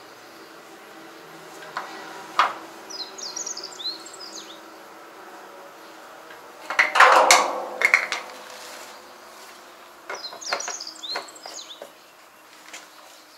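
Knocks and a loud clatter, about seven seconds in, from handling a fuel drum's hand pump and a plastic jerry can. A small bird chirps in two quick runs, over a faint steady hum.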